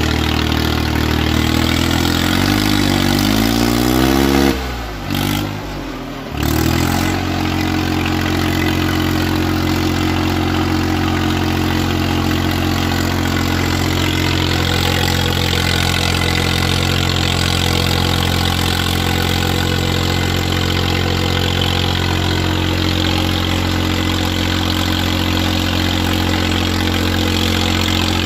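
Swaraj 855 tractor's three-cylinder diesel engine running hard and steady while the tractor is held up on its rear wheels. A few seconds in the revs rise and the sound briefly drops away, then the engine settles back to a steady high run.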